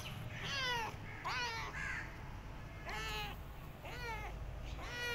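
Tabby kitten meowing over and over: about five short, high meows, each falling in pitch, roughly a second apart.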